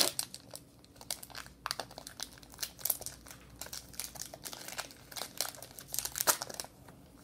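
Foil wrapper of a Pokémon TCG Shining Legends booster pack crinkling and tearing as it is pulled open by hand, without scissors: a run of irregular crackles that stops a little before the end.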